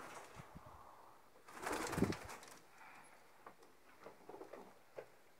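A domestic pigeon cooing once, softly, about a second and a half in, followed by a few faint taps.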